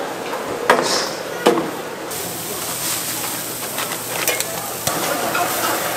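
Skewers sizzling on a street-food grill, a steady hiss, with a few sharp knocks, two of them in the first two seconds.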